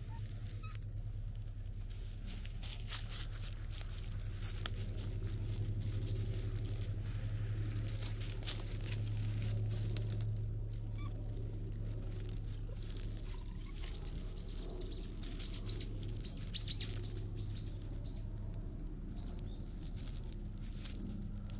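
Dry pine needles and leaf litter crackling and rustling underfoot as the cat moves and rubs against a person's legs. About two-thirds of the way through, a bird gives a quick run of high chirps.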